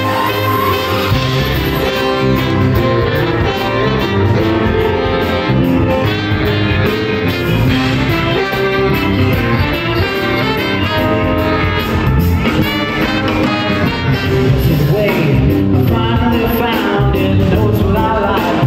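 Live band with a horn section (trumpet, trombone and saxophone) playing over keyboards and drums, loud and continuous.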